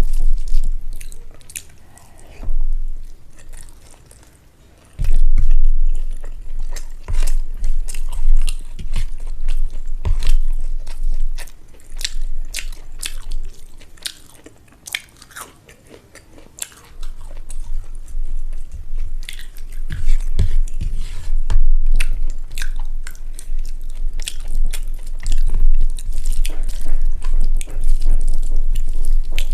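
Close-miked chewing and eating of rice and egg curry: wet mouth sounds and many sharp clicks, with a quieter pause a few seconds in and another around the middle.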